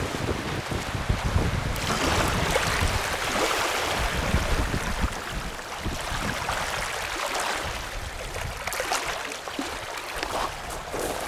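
Small wind-driven waves lapping and washing over a pebble lake shore, with wind rumbling on the microphone.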